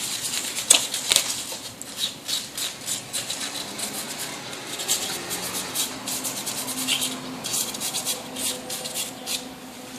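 Irregular scraping and rubbing, made up of many short scratchy clicks a fraction of a second apart, with a faint steady hum underneath in the second half.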